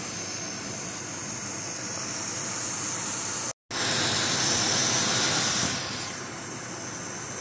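Handling noise from the phone being moved about: a steady hiss that cuts out for a moment about three and a half seconds in, comes back louder for about two seconds, then settles.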